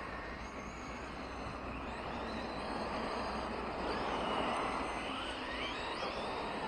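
RC trucks racing on a dirt track: their motors whine high, rising and falling in pitch several times as they speed up and slow down, over a steady rushing noise. The sound swells about four to five seconds in.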